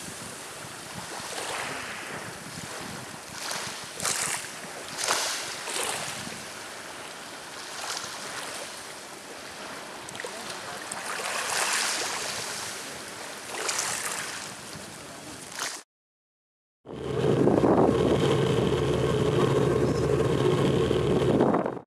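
Small waves lapping on a pebbly shore, swelling and falling every second or two with a few sharper splashes. After a brief gap near the end comes the louder, steady drone of a ship's engine: a low hum with a faint high whine.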